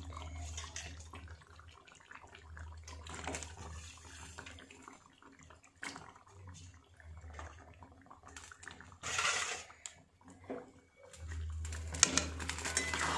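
Raw meat pieces sizzling in hot spiced oil in a metal kadai, with a few light knocks from a metal spatula. There is a louder rush of hiss about nine seconds in.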